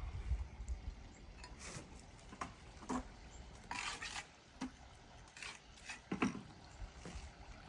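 Stone masonry work: scattered scrapes and light knocks as stack stone is set in mortar, with a longer scraping stretch about four seconds in.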